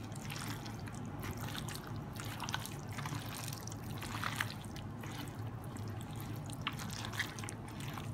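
Wet, sticky squelching of a gloved hand kneading raw chicken pieces in a thick tomato-and-chili-paste marinade in a bowl, in irregular short squishes, over a steady low hum.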